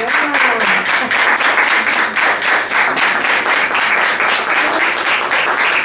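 Small group applauding, many hands clapping fast and unevenly.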